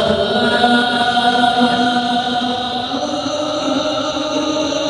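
A male qari reciting the Quran in tilawah style, drawing out a long, ornamented held note at the end of a phrase. The pitch steps up about three seconds in.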